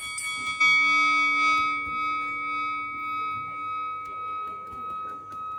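A bell struck once, ringing out with a long fading decay. Its upper tones die away over a few seconds while one high tone keeps ringing with a slow, even pulse in loudness.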